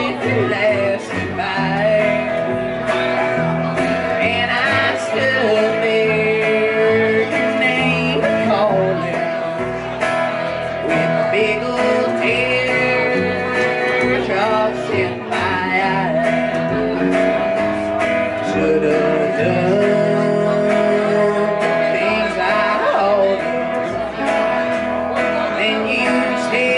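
A small country band playing live: electric guitar over upright bass and a second guitar.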